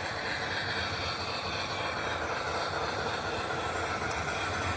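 Model trains running on the layout's track: a steady whir and rumble of toy train motors and wheels on the rails.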